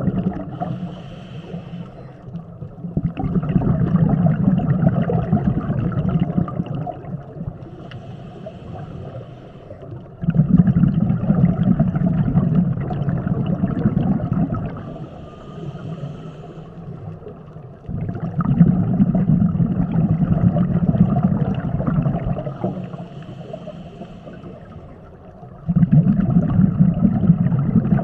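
A scuba diver breathing through a regulator, heard underwater: a short hissing inhale, then a long bubbling rumble of exhaled air. The cycle repeats about every seven to eight seconds, each exhale starting abruptly.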